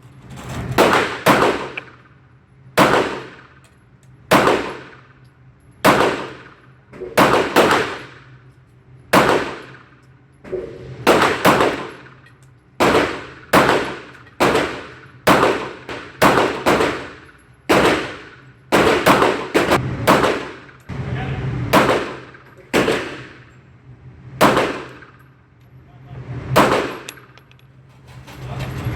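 CZ40-B .40 S&W pistol firing single shots at an uneven pace, about two dozen sharp shots, each followed by a ringing echo.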